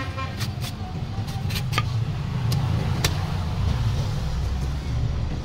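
Cleaver blade chopping and tapping into the husk of a peeled young coconut: a run of sharp knocks, several close together in the first couple of seconds, then a few spaced out until about three seconds in, and fainter after. A steady low rumble runs underneath.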